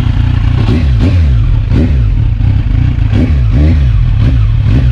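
Kawasaki Z1000 R's inline-four engine breathing through an aftermarket Orion slip-on exhaust, revved in a series of quick throttle blips, each sweeping up in pitch and falling back to idle.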